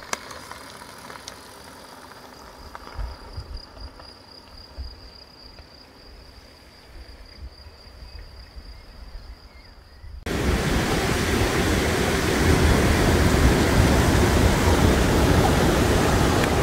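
For about ten seconds there are only faint low rumbles and a thin steady high tone. Then, after a sudden cut, comes the loud, steady rushing of a shallow mountain river flowing over stones.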